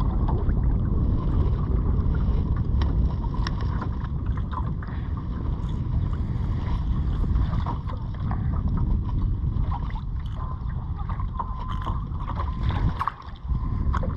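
Steady low rumble of wind buffeting the microphone aboard a small jon boat, with scattered light clicks and knocks.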